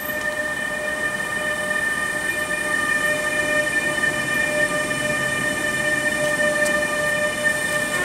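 Bombardier TRAXX class 253 electric locomotive sounding one long, steady horn note as it passes, over the rumble of its wheels on the track.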